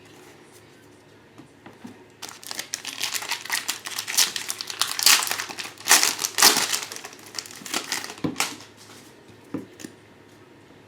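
A plastic trading-card pack wrapper being torn open and crinkled by hand, a dense crackling that starts about two seconds in and dies down about two seconds before the end.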